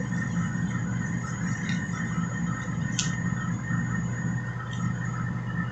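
Clear zip-lock plastic bag rustling and crinkling in plastic-gloved hands, over a steady low hum, with one sharp click about three seconds in.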